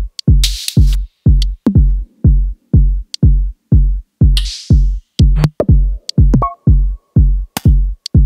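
Electronic backing music with a deep, steady kick drum at about two and a half beats a second, sharp percussive clicks, and two rushing noise swells, one near the start and one about halfway through.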